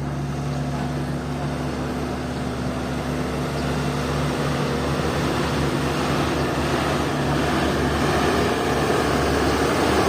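Heavy diesel engine running steadily, growing louder and rougher through the second half as it works harder to move a dump truck bogged in soft ground.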